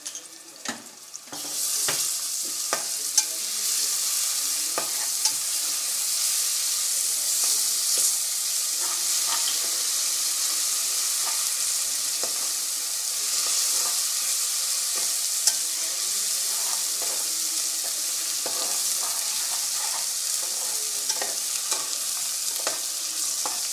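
Ginger-garlic paste hitting hot mustard oil and frying onions in a metal pot. It bursts into a loud, steady sizzle about a second and a half in, with a spoon clicking and scraping against the pot as the mixture is stirred.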